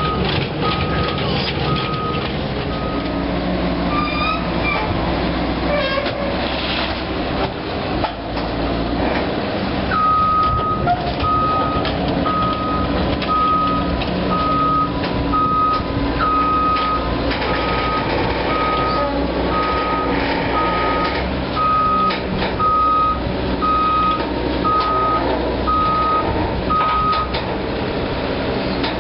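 Diesel engine of a Caterpillar 320D amphibious excavator on pontoon tracks running steadily while its travel alarm gives a repeating high beep as the machine crawls. The beeping stops after a few seconds and starts again about ten seconds in, carrying on until near the end.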